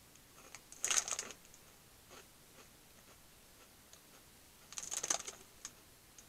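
A plastic snack wrapper crinkling in two short bursts, about a second in and again near five seconds, with a few faint light clicks between.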